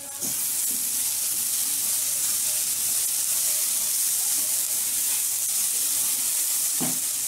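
Shredded cabbage, carrot and capsicum filling sizzling steadily in a hot non-stick kadai as it is stirred with a spatula. The sizzle cuts off suddenly near the end.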